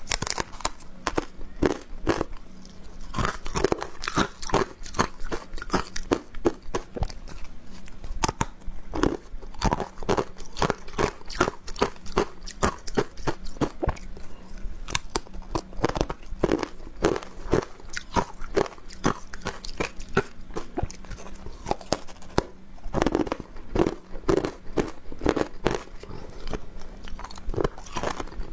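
Someone biting and chewing frozen matcha ice: a continuous run of crisp crunches, several a second.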